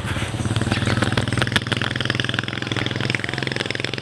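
A small engine running steadily with a rapid, even chugging.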